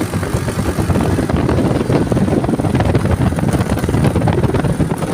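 A vehicle on the move: a steady low engine and road rumble with a rough, fluttering noise over it.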